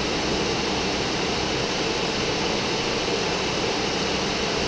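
Steady rushing noise on the flight deck of a Boeing 747 in the climb: airflow around the cockpit and the air-conditioning, running evenly without change.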